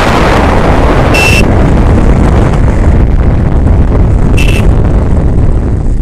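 Wind rushing and buffeting over the microphone of a moving road vehicle, mixed with the low rumble of its engine. Two short high beeps, one about a second in and one about four and a half seconds in.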